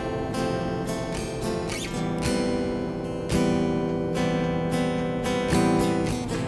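Background music led by a strummed acoustic guitar, with chords struck several times a second.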